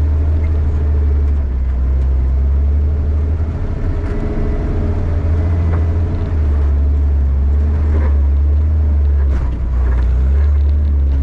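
Toyota FJ40 Land Cruiser's engine running at low speed as the truck crawls a rutted trail, a loud, deep drone that eases off about four seconds in and picks back up a couple of seconds later.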